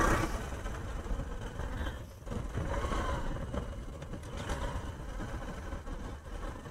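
Motorcycle being ridden and picking up speed at low road speed: the engine running under a steady low rumble of road and wind noise.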